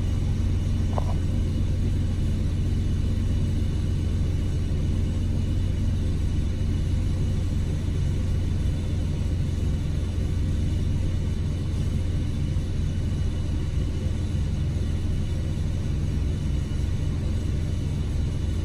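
Steady low rumble with a faint constant hum, unchanging throughout, like a running machine.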